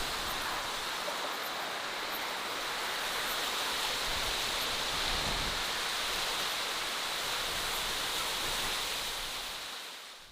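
A steady rushing hiss of noise, fading out near the end.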